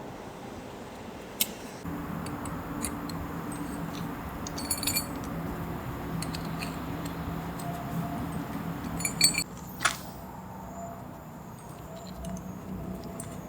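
Light metallic clinks and taps of small objects being handled, with a sharp click about a second in and a cluster of clinks near the middle and again near the end of the busy stretch. A low steady hum runs under the middle part and stops abruptly.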